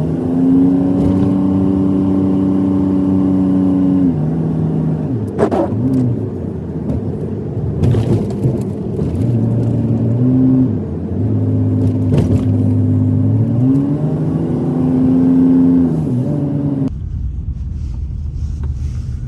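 Truck engine heard from inside the cab while driving, its pitch holding steady, then dropping and climbing again several times as it shifts and accelerates, with a few short knocks. Near the end the engine tone cuts out suddenly, leaving a low rumble.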